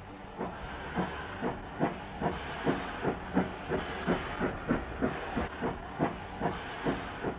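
Narrow gauge steam locomotive (Rio Grande K-28 Mikado No. 473) working slowly, its exhaust chuffing evenly at about two and a half beats a second over a steady hiss of steam.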